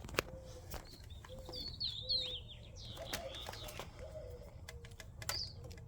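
Faint birdsong: quick high chirps and warbles about one and a half to two and a half seconds in and again near the end, with repeated low cooing notes, as of a dove, running through. Scattered light clicks are heard among them.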